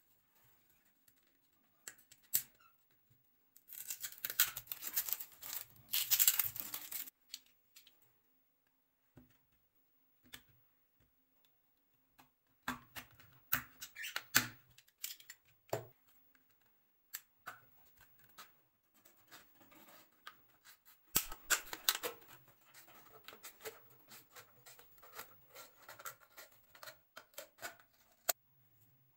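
A thin plastic drink bottle being handled and cut by hand: three spells of plastic crackling and scratching, the loudest a few seconds in. In the last spell, about two-thirds of the way in, scissors snip through the bottle wall.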